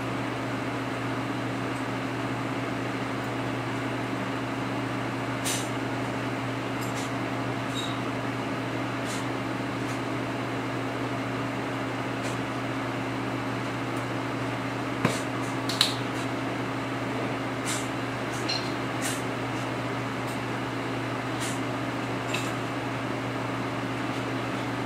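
Lucas horizontal boring mill running with a steady low hum, with scattered light ticks and two sharper clicks about fifteen seconds in.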